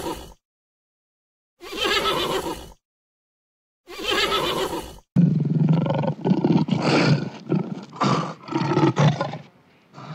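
Horse whinnying in short, alike bursts with silence between them. About five seconds in, this gives way to a lion roaring in a run of repeated low calls.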